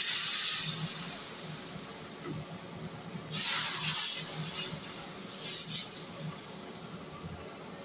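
Thin rice-flour and gram-flour dosa batter sizzling as it is poured onto a hot tawa. The hiss is loudest at the first pour, fades, and surges again a little over three seconds in with a second pour, then dies down as the batter is spread.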